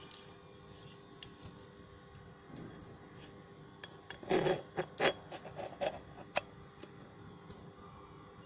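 Handling noise: scattered light clicks, with a short run of rubbing and knocking about four to five seconds in, as a flashlight is moved around inside a welded metal exhaust pipe. A faint steady hum runs underneath.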